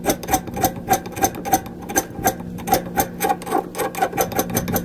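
Hand file stroked quickly back and forth over the wooden end of an axe handle and its wedge, chamfering the sharp edges: a run of short rasping strokes, about five or six a second.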